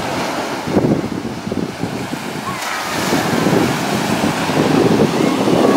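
Small waves breaking and washing up a sandy beach, with wind buffeting the microphone in uneven gusts.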